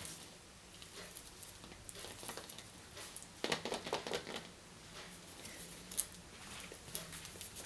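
Hands handling and unwrapping surprise-egg packaging: plastic and foil wrappers crinkling with scattered small clicks. There is a denser burst of crinkling about three and a half seconds in and a sharp click about six seconds in.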